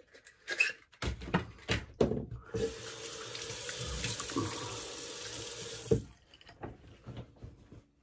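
Bathroom sink tap running steadily for about three and a half seconds as water is splashed on the face to rinse after a shave, with a few knocks and splashes before it. The water stops with a thump about six seconds in, followed by faint drips and small splashes.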